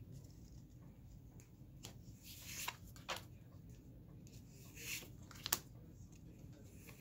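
Magic: The Gathering trading cards being slid one by one from the front of a hand-held stack to the back: quiet swishes of card stock rubbing together, with a few small snaps, the sharpest about five and a half seconds in.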